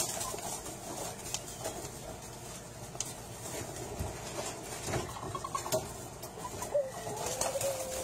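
Ring-necked dove cooing: one drawn-out low coo near the end, with scattered light taps and scuffs.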